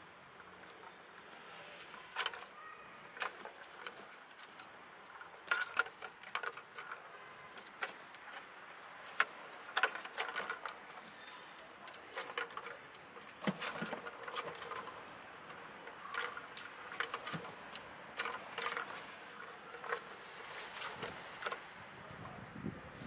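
Plastic balls rolling and rattling in a tiered ball-track cat toy as kittens bat at them: irregular light clicks and rattles, some in quick clusters.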